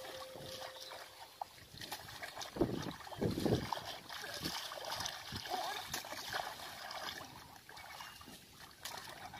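Hands splashing and squelching in shallow muddy water while grabbing a fish in the mud. The splashes are short and irregular, loudest around three seconds in.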